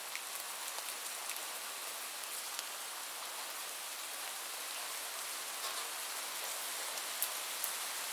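Steady rainfall: an even hiss of rain with scattered sharp ticks of single drops landing.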